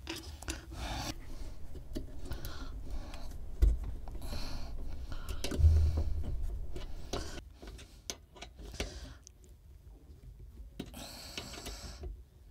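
Hands working a flexible fresh-air intake hose into place on a diesel parking heater: rubbing and rustling with scattered clicks and knocks, and two dull thumps a few seconds in.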